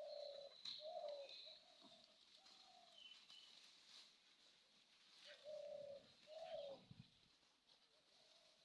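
A dove cooing faintly in two phrases of soft, low notes: one at the start and another about five seconds in. Small birds chirp thinly in the background.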